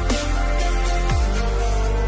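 Electronic music with a heavy beat, its deep bass notes sliding down in pitch over and over.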